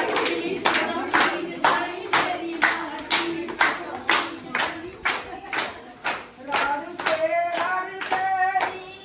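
Rhythmic hand clapping, about two claps a second, keeping time with a voice singing.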